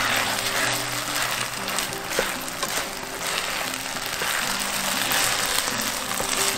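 Soaked glutinous rice sizzling in its sauce in a nonstick wok as it is stirred with a wooden spatula; the sauce is cooking down into the sticky rice. Background music with held low notes plays underneath.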